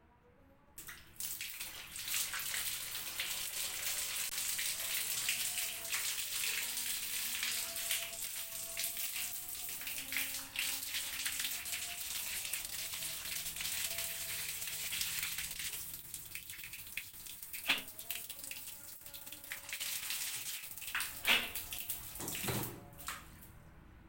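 Tap water gushing from a hose through a washing machine's water inlet solenoid valve and splashing out of the valve body as the valve is flushed. The flow starts about a second in, breaks up near the end with a few knocks, and stops.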